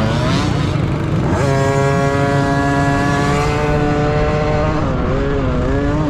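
Dirt bike engine revving up sharply about a second and a half in and held at high revs, then easing off and picking up again near the end.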